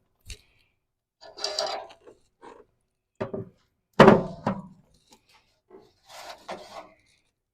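Metal cooking grates being set onto a charcoal grill: a scrape and a series of clanks and knocks, the loudest about four seconds in.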